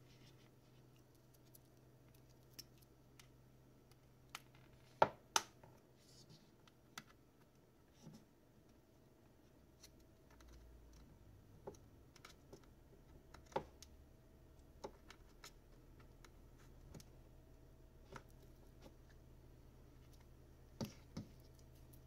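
Scattered sharp clicks and light scraping as a pry pick is worked along the seam of a smartphone's case, its clips popping loose. The two loudest clicks come close together about five seconds in, with a louder pair again near the end.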